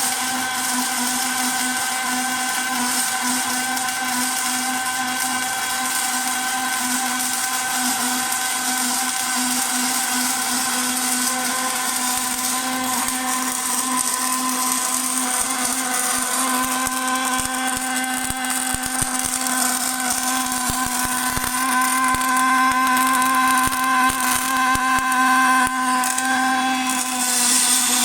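Automatic longitudinal seam welding machine for fire extinguisher shells running: a steady motorised hum with several held tones over a hiss, getting a little louder about three-quarters of the way through.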